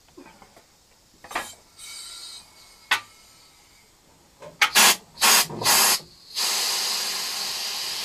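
Compressed air hissing through the valve and hose of a red portable tank. First a faint hiss and a sharp knock, then three short loud blasts, then a steady hiss from about six and a half seconds in.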